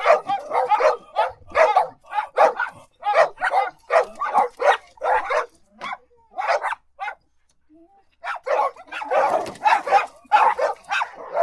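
Dogs barking in rapid, repeated barks. The barking stops for about a second and a half around two-thirds of the way in, then resumes more densely, with barks overlapping.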